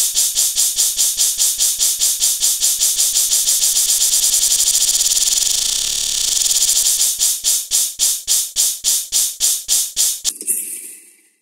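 Synthesized white-noise sound effect: hissy pulses repeating about four a second, speeding up until they blur into a continuous hiss about six seconds in, then slowing apart again and fading out near the end.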